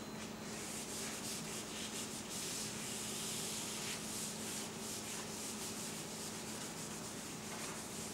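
Felt whiteboard eraser rubbed back and forth across a whiteboard in repeated wiping strokes, clearing the written board.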